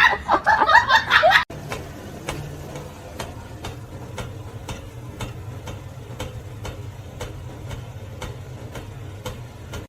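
Chickens clucking loudly, cut off abruptly about a second and a half in. Then a steady low hum with regular light ticking, about three ticks a second.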